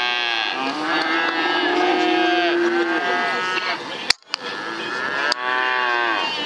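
Cattle lowing, several long overlapping moos one after another. About four seconds in there is a single sharp click and a very brief gap in the sound.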